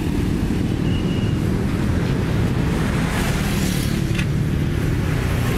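A motor vehicle engine running steadily, a low rumble at an even level, with street traffic noise around it.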